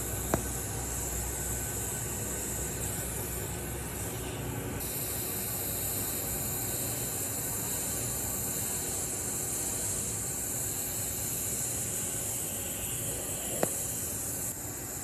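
TIG welding arc on 316L stainless steel pipe, hissing steadily while filler rod is fed in. Two sharp clicks stand out: one just after the start and one near the end.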